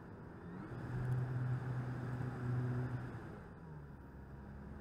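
RC Fw190 model's motor and propeller heard from its onboard camera in flight: a steady hum over wind rush. It swells louder about a second in and eases off after three seconds, its pitch gliding up and down as the throttle changes.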